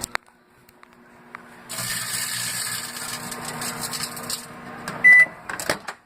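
Microwave oven running with a steady hum; about two seconds in, the foil-lined chip bag inside buzzes and crackles loudly for about three seconds. Then a single beep and a couple of clicks.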